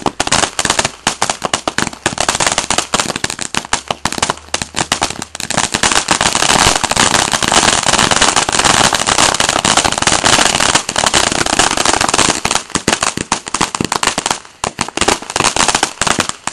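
Ground fountain firework spraying sparks with a dense, fast crackle. The crackling thickens about five seconds in and thins out a little near the end.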